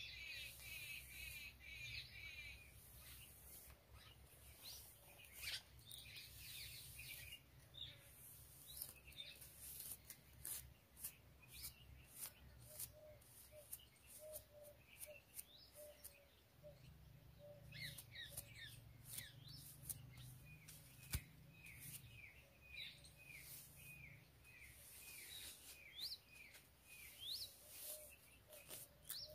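Faint sound of a comb drawn through long hair in short scratching strokes, with small birds chirping repeatedly in quick series of short calls.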